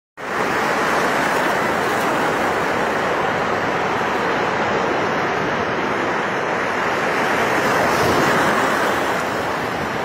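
Sea surf washing in over shallow water at the shoreline: a steady rush of breaking waves and foam, swelling a little about eight seconds in.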